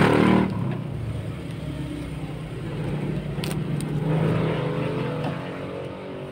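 A motor vehicle engine running, its pitch shifting slightly. It is louder at the start and swells again about four seconds in.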